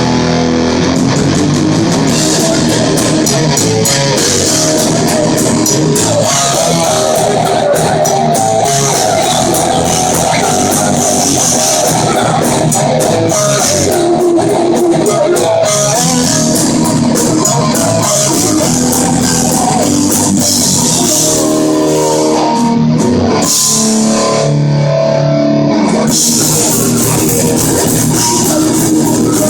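Live heavy metal band playing loud and steady: distorted electric guitars, bass guitar and drum kit.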